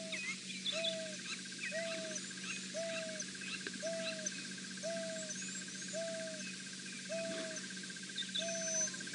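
African wild dog giving its hoo call: a short hooting note repeated about once a second. It is the contact call a pack member uses to locate the rest of its pack. A faint steady high trill and scattered bird chirps sound behind it.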